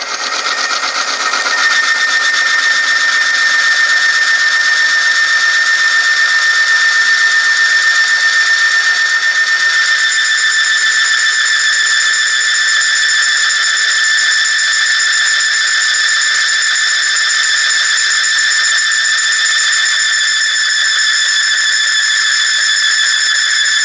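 Friction-testing machine running a metal sample in GM 5W40 Supreme Plus oil heated to 100°C, squealing loudly and steadily as the loaded contact rubs, metal on metal. The squeal holds one high pitch, and a set of higher tones joins about ten seconds in.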